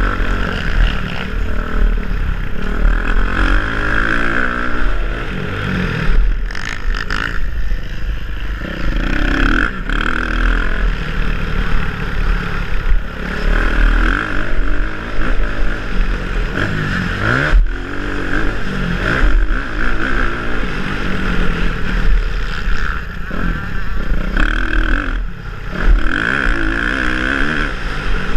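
Motocross dirt bike engine heard from the rider's helmet, revving hard and rising and falling in pitch again and again as the bike accelerates, shifts and backs off through the corners, with clatter from the rough track.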